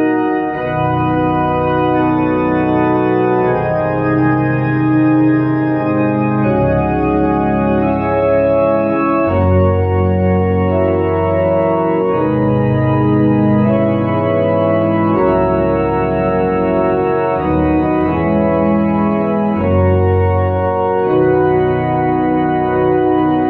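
Tokai YX 400 electronic organ playing a hymn on a pipe-organ registration: full sustained chords that move every second or two over held pedal bass notes.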